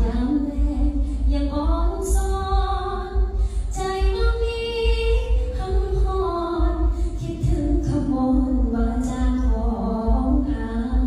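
A woman singing unaccompanied into a handheld microphone, holding long notes that bend and slide in pitch, with a low rumble underneath.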